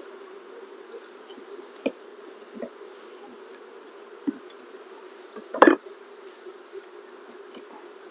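Honey bees of an open hive humming steadily, with a few sharp knocks and clicks as a metal hive tool works the wooden frames loose. The loudest knock comes about five and a half seconds in.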